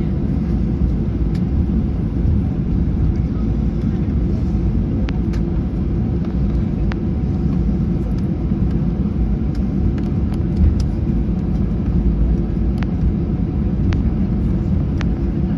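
Steady low rumble of a Boeing 737's cabin noise while it rolls on the ground after landing: the engines and wheels heard through the fuselage, with a few faint clicks from cabin fittings.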